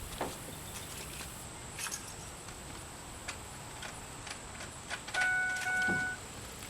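Ford F-150 turn signal flasher ticking in the cab as the signal is tested, a run of sharp clicks, with the truck's electronic warning chime sounding about five seconds in.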